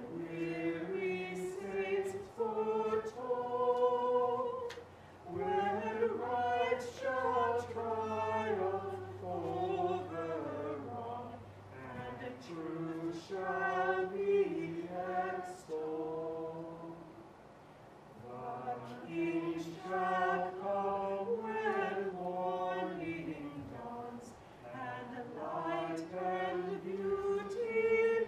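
Church choir singing a hymn in phrases of long held notes. A low steady note sounds under the voices for several seconds, from about five seconds in.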